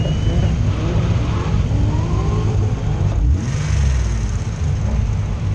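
The BMW E30's engine and the engines of the drift cars just ahead revving unevenly, several pitches rising and falling over a heavy low rumble, as the cars roll slowly in a queue.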